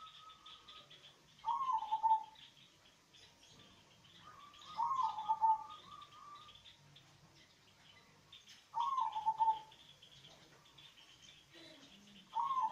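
Zebra dove (perkutut) with a deep voice cooing: four short phrases about every three and a half seconds, each dropping in pitch.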